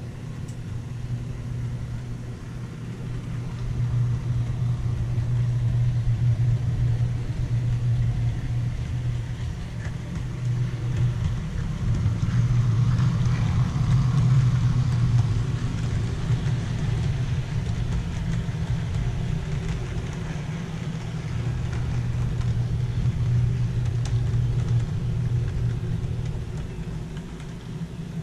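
Bachmann HO scale model train running on the layout track: a steady low motor hum with wheel rumble. It grows louder as the train passes close by around the middle, then fades and swells again as it circles.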